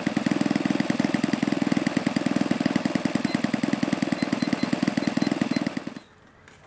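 Saito 80 single-cylinder four-stroke glow engine of an RC warbird model running steadily at idle, a rapid, even popping beat. It stops abruptly about six seconds in.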